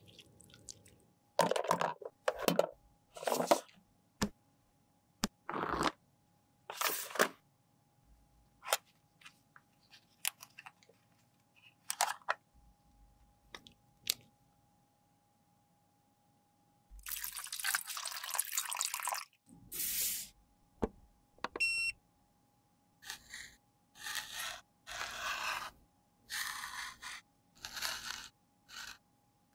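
Close-up handling of makeup: separate scrapes, taps and clicks on plastic cases, with a longer scraping stretch about halfway through. Near the end a metal spatula scrapes pressed eyeshadow powder into flakes in strokes about one a second.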